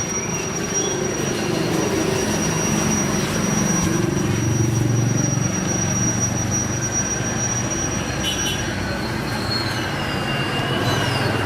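A steady, fairly loud mechanical running noise with a low hum and a thin, high whine that stops a little past the middle; a short gliding tone near the end.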